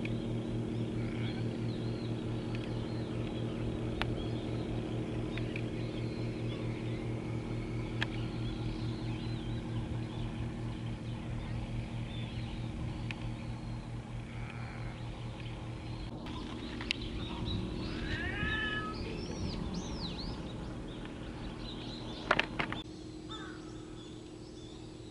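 Low, steady throbbing drone of ship diesel engines from the tugboats and tanker across the water, slowly fading. A crow caws a few times about three-quarters of the way in, and a couple of sharp clicks come near the end.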